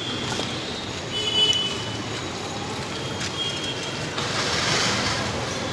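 Roadside street ambience with a steady traffic rumble, a few short high tones, and a louder rushing hiss starting about four seconds in, such as a vehicle passing close by.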